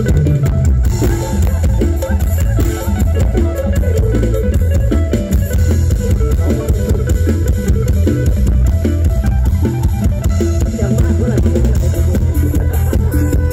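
Loud stage-show music through outdoor PA speakers: a drum kit and guitar over heavy bass, playing continuously.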